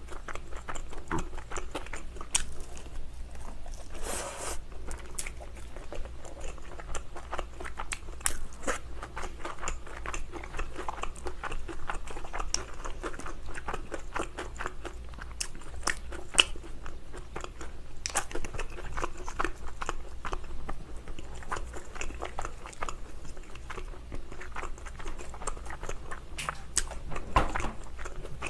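Close-miked biting and chewing of thin-crust cheese steak pizza: a steady stream of crunches and wet mouth clicks.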